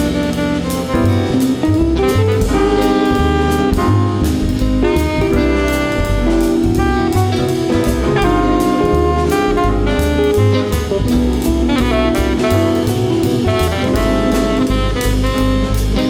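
Live jazz ensemble playing an instrumental passage: a saxophone line over walking bass and drum kit, with the rest of the band behind it.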